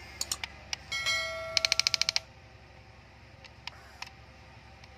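A subscribe-button sound effect: a few quick mouse clicks, then a bell chime that rings out and turns into a rapid ringing at about fifteen strokes a second before stopping about two seconds in.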